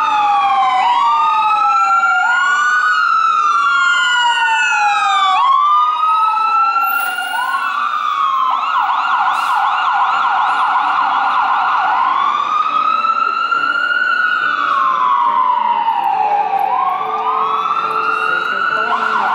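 Loud electronic siren of a fire engine on a code 3 response, going through repeated falling sweeps, switching to a rapid yelp a little before halfway, then back to a slow rising and falling wail.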